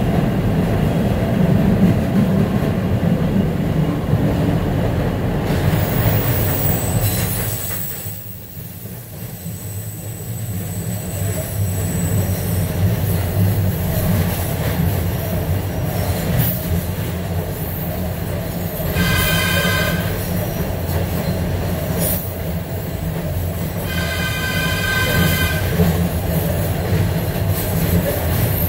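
Running noise of a SEPTA Market-Frankford Line Adtranz M-4 subway car heard from inside the car's end vestibule: a steady low rumble of wheels and running gear that dips for a couple of seconds about eight seconds in. Two short high-pitched tones sound near the end, the second about five seconds after the first.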